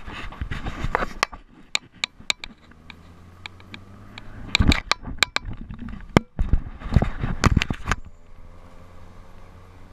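Irregular knocks, clicks and scrapes of fishing gear and clothing against a plastic kayak and the jostled camera as a hooked fish is fought, in two heavier clusters. It goes quieter about eight seconds in.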